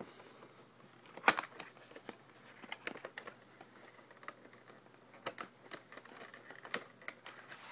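Retail packaging of a DDR3 memory kit being opened and handled: scattered, irregular clicks and taps of cardboard and plastic, the sharpest about a second in.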